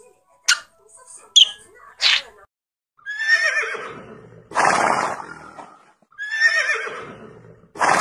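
A few short, sharp squawks from parrot chicks, then a horse whinnying twice. Each whinny opens with a high, wavering call that falls in pitch, then breaks into a louder, rougher part.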